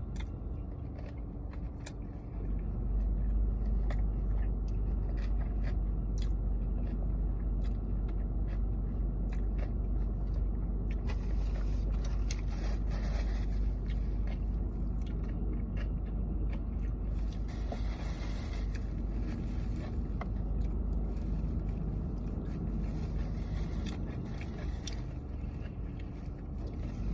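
Close-up chewing and biting of someone eating sushi, with scattered small clicks and scrapes, over a steady low rumble.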